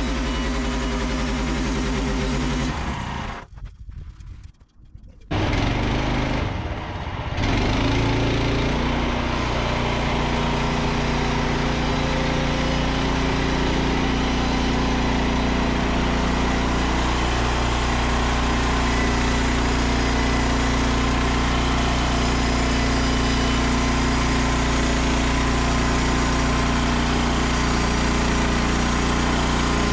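Frontier OS27 portable sawmill's engine running steadily. About three seconds in, the sound drops away for roughly two seconds, then resumes and holds steady.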